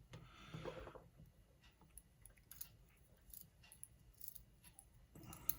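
Near silence with faint, scattered small clicks of metal lock parts being handled: the tiny springs, spools and wafers of a gutted ABUS 72/40 lock core. A few slightly louder clicks come near the end.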